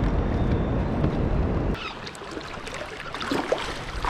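Wind rumbling on the microphone for the first couple of seconds, then an abrupt change to moving river water rippling and splashing lightly against a kayak hull, with small scattered splashes.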